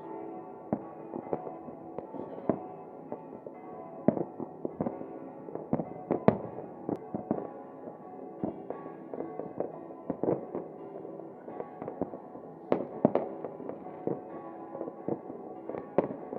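Fireworks going off in irregular sharp bangs, some in quick clusters, over music with sustained tones.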